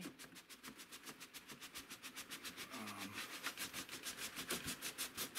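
A cardboard sleeve is being slid off a large cardboard box. The board rubs on board in a fast, even rasp of about ten strokes a second.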